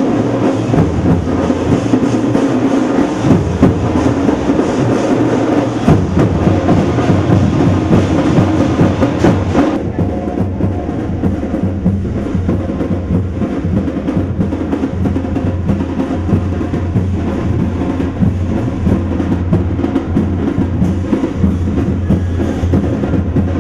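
Loud percussion-heavy music with fast drumming and a strong low beat. About ten seconds in, the brighter upper sound drops away while the low drum beats carry on.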